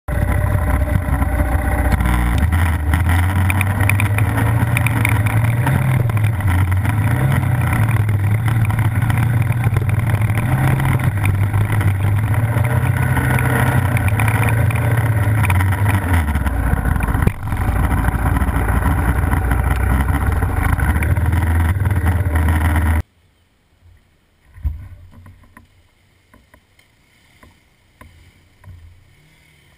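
Off-road vehicle engine running under way, heard on board with wind rush, its pitch rising and falling with speed and dipping briefly about 17 seconds in. About 23 seconds in the sound cuts off abruptly, leaving a much quieter stretch with a single knock and faint distant sounds.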